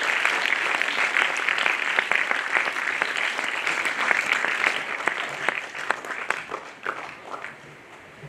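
Audience applause, many people clapping at once. It thins to a few scattered claps over the last few seconds and dies away.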